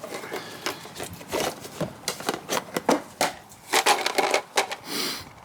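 Spare car parts being handled and rummaged through in a box: an irregular run of clicks, knocks and clunks, with a short rustle near the end.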